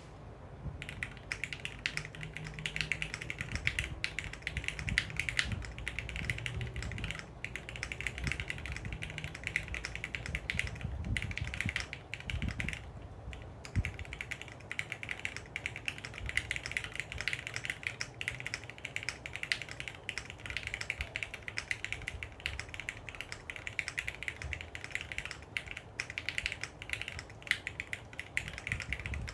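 Typing on a Bakeneko60 custom mechanical keyboard with lubed, filmed Cherry MX Hyperglide Black linear switches on 65 g springs, in an FR4 plate on a gummy O-ring mount, with PBT keycaps. It is a fast, continuous run of keystrokes, with a short pause about thirteen seconds in.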